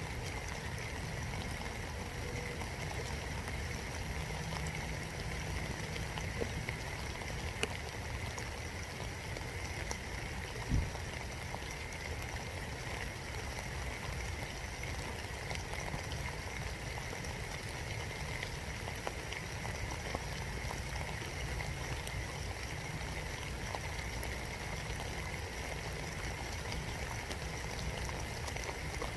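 Steady spring rain in woodland heard from inside a birdhouse: a constant hiss with scattered drops tapping, and one louder thump about eleven seconds in.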